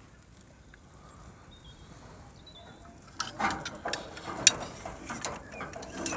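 Metal grill tongs and a rack of spare ribs clinking and scraping against the metal rib rack and cast grate of a Rösle Videro G4-S gas grill as the ribs are set in place: a run of irregular metallic clicks starting about halfway through, the sharpest about three-quarters of the way in.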